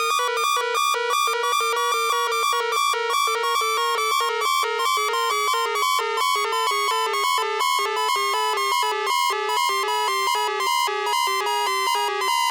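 Synthetic electronic alarm siren: a rapid warble stepping quickly back and forth between notes, with a thin steady high tone above it that drifts slowly lower.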